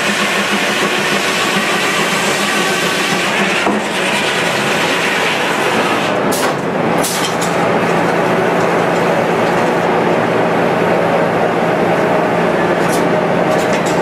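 Circular sawmill running, its log carriage carrying a log through the spinning saw blade: a loud, steady mechanical clatter and whir, with a few sharp knocks about halfway through and near the end.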